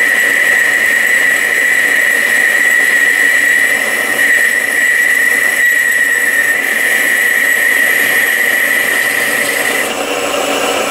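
Metal lathe boring out a bearing recess inside a tractor front-axle arm: a steady cutting noise over the lathe's running, with a high whine that stops about a second before the sound cuts off suddenly.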